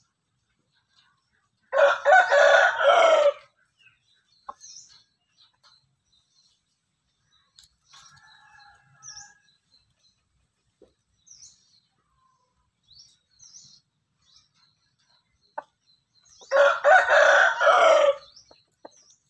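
Rooster crowing twice, about fifteen seconds apart, each crow lasting a little under two seconds, with faint chirps of small birds in between.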